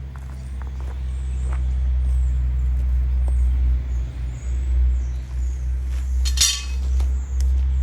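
Lawn mower engine running steadily with a low drone, with a short hiss about six and a half seconds in.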